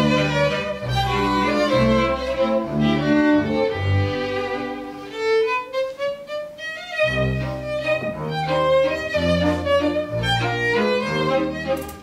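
A small string ensemble of violins and double bass plays a lively piece, the violins carrying the melody over a steady bass line. About halfway through the bass stops briefly while a violin slides upward in pitch, then the bass comes back in.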